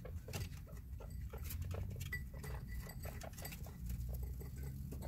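Guinea pigs at a ceramic food bowl: a run of small crunching and clicking sounds from chewing and shuffling, with a few faint short squeaks around the middle.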